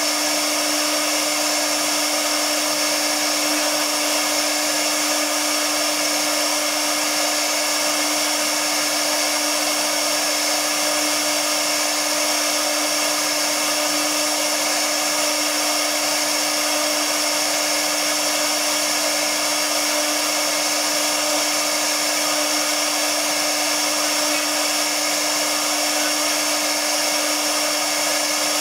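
Spindle of a Tiptopcnc 1325 CNC router running steadily while its small carving bit cuts relief detail into MDF board. It makes an even motor whine with a constant hum and hiss, with no change in level.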